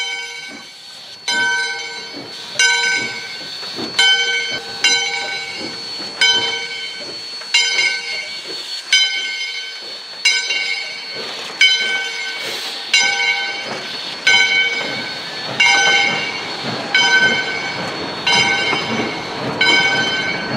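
Steam locomotive bell of Valley Railroad #40 ringing steadily, about one strike every 0.7 s, as the train pulls out past the platform, over a steady hiss of steam. The rumble of the coaches rolling by grows in the second half.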